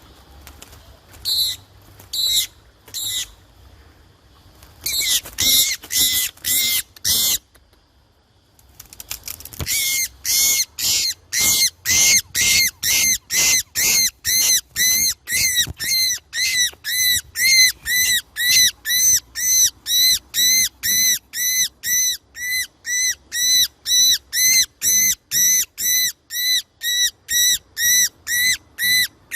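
A bird calling loudly over and over. It starts with a few separate calls, then gives a quick group. About nine seconds in, a steady run of about two calls a second begins.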